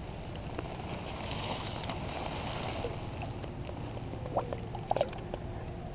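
Wind buffeting the action-camera microphone as a steady low rumble, with light water sloshing as a hand lowers a bass back into the lake shallows to release it. A couple of small ticks about four and five seconds in.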